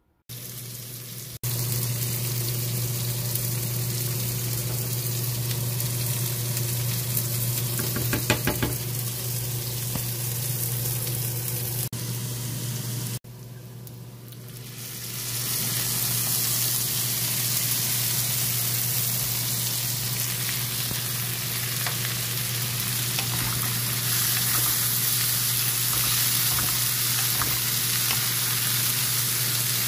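Onion and carrot frying in hot oil in a pan, a steady sizzle. About halfway through, rinsed lentils are tipped in from a mesh strainer; the sizzle dips, then builds back up as the lentils fry. A steady low hum runs underneath.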